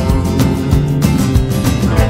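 Instrumental stretch of a band's song with no singing: guitar over bass, with drums keeping a steady beat.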